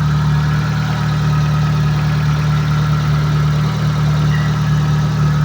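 Mitsubishi Lancer engine idling steadily, just brought back to life after a no-spark fault was cured by replacing the ignition coil and ignition module.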